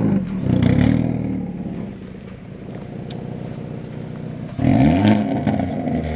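Hyundai Elantra N's turbocharged 2.0-litre four-cylinder heard at its exhaust tip as the throttle is blipped. A rev falls away in the first second or so and the engine settles to a steady idle, then another sharp rev rises and falls about four and a half seconds in.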